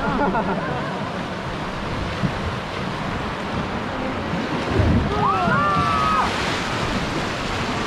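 Steady rush of river water with wind buffeting the microphone on an open river boat. A brief voice calls out about five seconds in.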